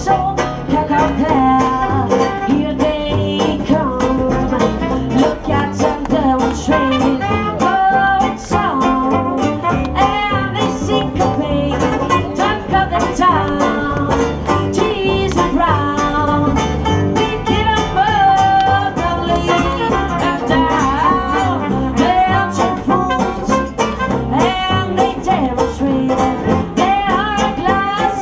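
A live band playing through a stage PA: a singing voice over plucked strings and a steady beat.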